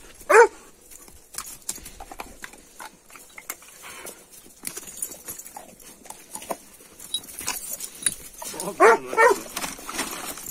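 Dogs yelping and whining excitedly while waiting for bones: one short high yelp about half a second in, then several more near the end as they jump for a bone. Scattered scuffs and knocks fill the gaps between the yelps.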